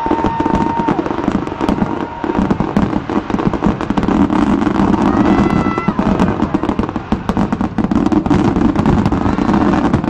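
Fireworks display: a dense, continuous run of rapid bangs and crackling. Whistling tones sound over it near the start and again about halfway through.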